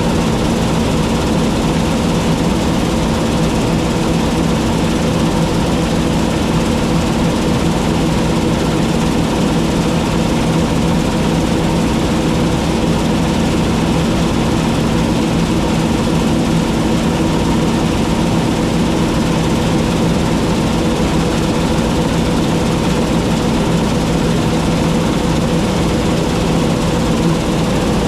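John Deere T660 combine harvester running steadily, a constant engine note with several held tones and no change in level.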